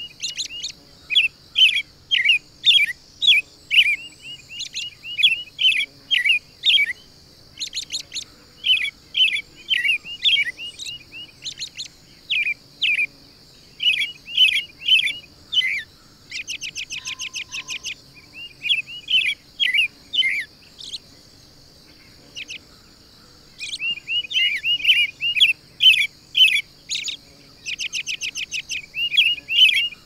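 Wild songbirds chirping and calling in quick, busy series, with two short, rapid trills of evenly spaced notes, over a faint steady high hiss.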